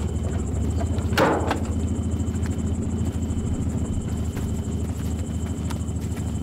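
Car engine idling with a steady low rumble, and one sharp clunk about a second in.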